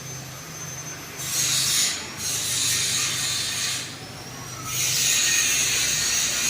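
Panasonic F-560Z2 industrial ceiling fan running, with a steady low motor hum under a rushing hiss that dips and comes back several times.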